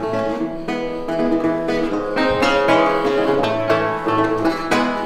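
Baroque lute played solo by hand: a flowing passage of plucked notes over ringing low bass notes, the strings left to sustain between strokes.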